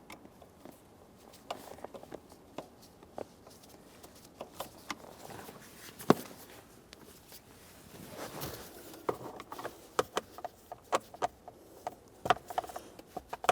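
Scattered clicks and light plastic knocks from a screwdriver turning screws into plastic steering column covers. One sharp click about six seconds in, and a quicker run of clicks from about nine seconds on.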